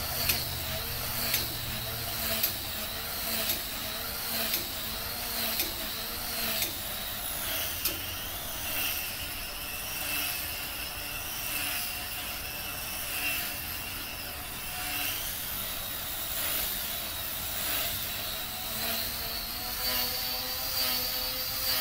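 Tiny electric motor and propeller of a Flyline tethered model P-51 Mustang whining at high power as it circles on its line, swelling and fading about once a second each time it sweeps past.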